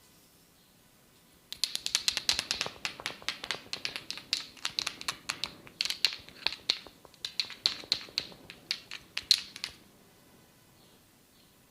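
Rapid run of sharp snaps and taps from a barber's head massage, several a second for about eight seconds, then stopping.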